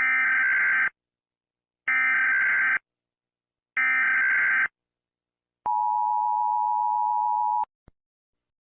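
Emergency Alert System SAME header: three bursts of warbling data tones, each just under a second long and about a second apart. Then comes the EAS two-tone attention signal, held steady for about two seconds before it cuts off, with a faint click just after.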